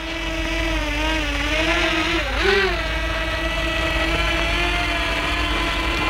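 Potensic Atom SE quadcopter in flight: its propellers give a steady whine of several tones. The pitch wavers as the motors adjust, with a brief dip and rise about two seconds in.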